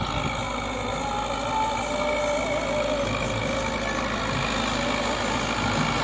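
Caterpillar 424B backhoe loader's diesel engine running steadily as the machine drives forward pushing soil with its lowered front bucket, growing slightly louder as it comes closer.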